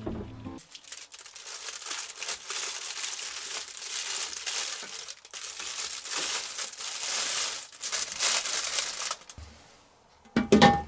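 Kitchen wrap crinkling and rustling for about eight seconds as it is handled, then a short ringing knock near the end.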